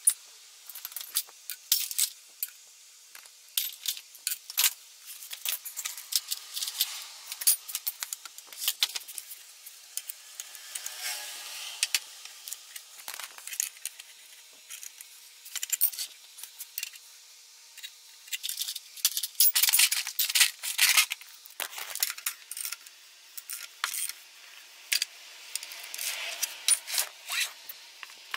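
Irregular metallic clinks, taps and rattles of hand tools and engine parts being handled on a disassembled motorcycle engine's crankcase.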